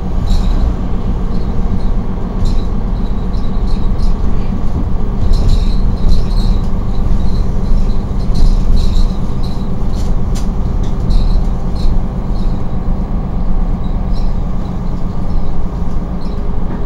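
A city bus driving, heard from inside the passenger compartment: steady engine and road rumble with frequent small clicks and rattles from the bus body and fittings.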